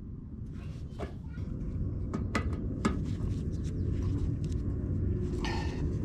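Low rumble growing gradually louder, with a few light sharp clicks and a brief scrape as gloved hands work a metal clip over the edge of zinc roof flashing.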